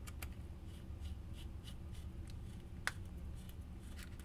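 Small plastic clicks and light handling sounds from fitting a coupler to an HO scale model locomotive, with one sharper click about three seconds in, over a steady low hum.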